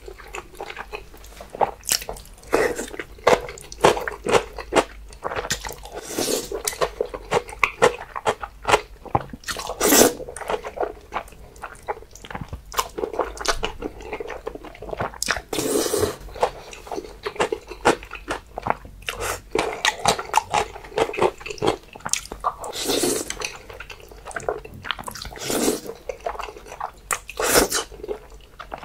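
Close-miked eating of jjajangmyeon (black bean sauce noodles): noodles slurped into the mouth every few seconds, with chewing and mouth clicks in between.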